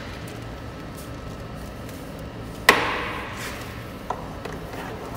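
A single sharp knock with a short ringing tail about two and a half seconds in, from hands working among the lift truck's hoses and panels, with a faint click a little later, over a steady low hum.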